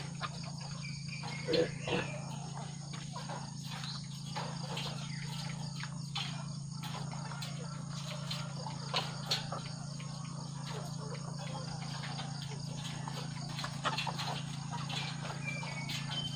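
Laying hens in wire battery cages give short clucks and make scattered clicks, over a steady chirping of insects and a low steady hum. A pair of louder calls comes about a second and a half in.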